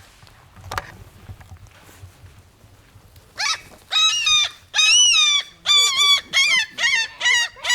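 Seagull screeching: a couple of short calls in the first second, then from about three and a half seconds a loud run of about ten rapid, harsh calls in quick succession.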